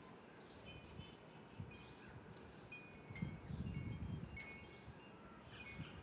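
Light tinkling of chime-like ringing: short high notes at several different pitches, scattered throughout. A low rumbling handling noise from about three seconds in is the loudest part.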